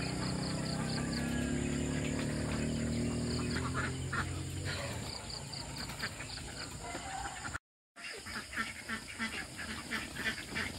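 A flock of domestic laying ducks quacking continually in many short, overlapping calls. A low steady drone runs under the first half and fades out about five seconds in, and the sound cuts out for a moment about eight seconds in.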